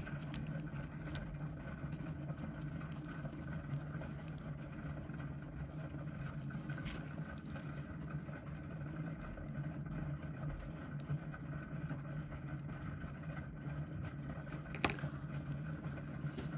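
Steady low hum of boosted room and electrical background noise, with a few faint light clicks from small screwdrivers and tweezers working on a watch, one sharper click near the end.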